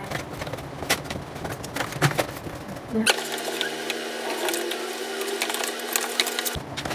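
Cardboard box being folded and assembled by hand: irregular scraping, creasing and tapping of the flaps and panels. Faint steady tones sound under the handling from about three seconds in.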